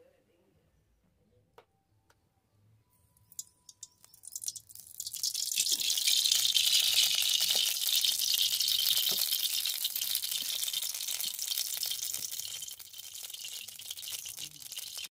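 Cooking oil sizzling in a hot wok over a wood fire: a crackling hiss that sets in about four seconds in, after a few small clicks, and slowly dies down toward the end.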